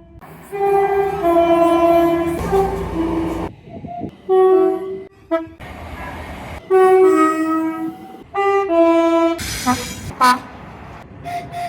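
Train horns sounding in a series of separate recordings cut together: multi-note horn chords in long and short blasts, the long blasts dropping in pitch partway through. Train rumble runs beneath some of them.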